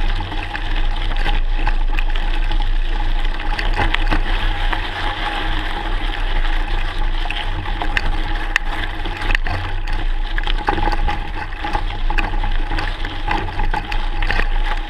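Mountain bike rolling over loose gravel and stones: a steady rush of tyre noise with many scattered ticks and rattles.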